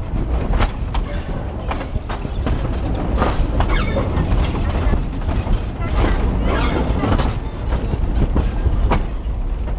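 Narrow-gauge (2 ft 6 in) passenger train running, heard from an open carriage doorway: a steady rumble with the irregular clatter and knocking of wheels over the rail joints.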